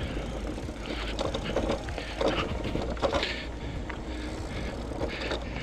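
Velotric Summit One e-bike rattling over a rocky trail, with many small knocks from the bike and tyres on rock and a low steady rumble underneath.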